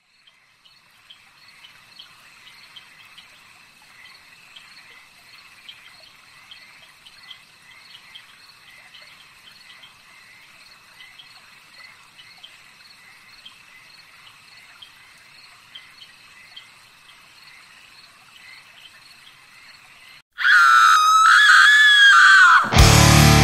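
Faint night chorus of frogs and insects, a steady high trill with regular chirps. About twenty seconds in a loud, high, wavering cry cuts in and falls away, and near the end a heavy metal band crashes in with distorted electric guitar and bass.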